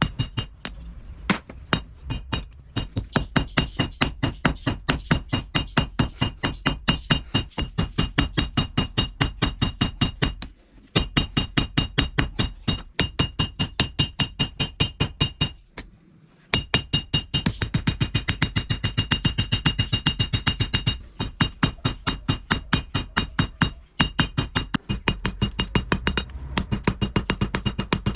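Hammer blows on steel at an anvil, forging a knife blade from a piece of bearing steel: rapid, even strikes about three a second, each with a metallic ring, pausing briefly twice.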